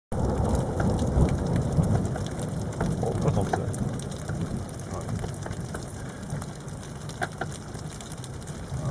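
Rain falling in a thunderstorm, with close drops ticking and a low rumble of thunder that dies away over the first half.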